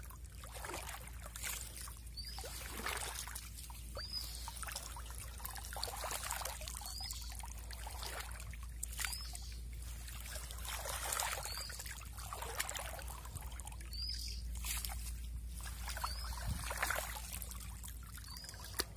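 Water trickling and splashing in a flooded rice paddy, with a bird repeating a short high chirp about every second and a half.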